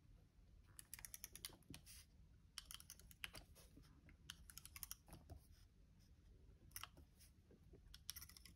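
Handheld tape roller clicking faintly as it is pressed and drawn along a paper page, in several short runs of rapid ticks.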